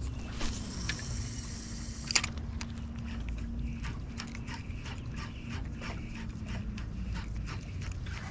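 Steady low hum of a bass boat's electric trolling motor, which stops about a second before the end, under scattered light clicks and ticks from fishing reels being cranked.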